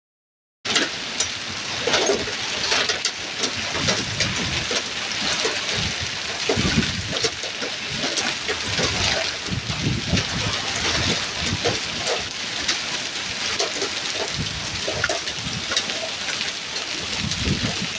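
Heavy rain mixed with hail pelting down on paving, a dense steady hiss with many sharp ticks of hailstones striking, starting suddenly under a second in.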